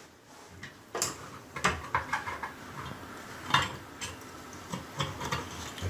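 Scattered light clinks and taps, about half a dozen, of the small metal pop-up drain parts being handled at a bathroom sink.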